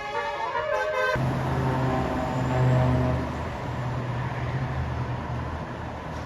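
A bus's Basuri telolet musical horn playing a stepping multi-note tune that cuts off suddenly about a second in. Then the bus's engine runs with a low steady hum, swelling briefly before the middle and easing off.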